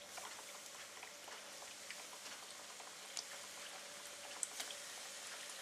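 Floured, egg-dipped chicken pieces deep-frying in hot oil in a wok: a faint, steady sizzle and bubbling with scattered crackles, and a few sharper pops past the middle.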